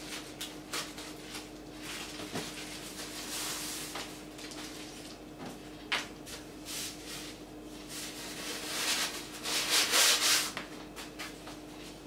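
Plastic wrapping rustling and crinkling as it is pulled off a folded umbrella and handled. There is a sharp knock about six seconds in, and the loudest rustling comes near the end.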